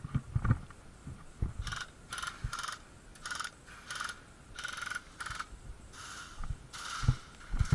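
Airsoft electric guns firing in about a dozen short, uneven bursts. Each burst is a brief mechanical whir of the gearbox cycling.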